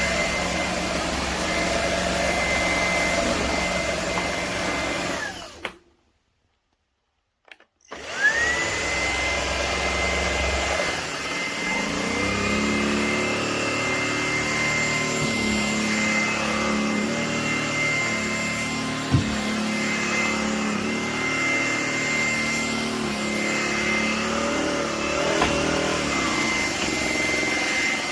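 Shark Stratos cordless stick vacuum running with a steady high whine. It cuts out about six seconds in and starts again two seconds later, the whine rising as the motor spins back up. There is a single knock about two-thirds of the way through.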